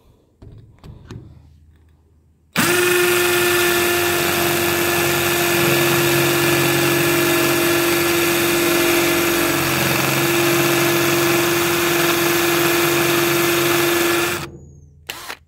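KIMO 20V cordless drill boring into a concrete paver, most likely in hammer mode. The motor starts abruptly about two and a half seconds in, runs steadily for about twelve seconds while the bit grinds into the stone, then winds down near the end.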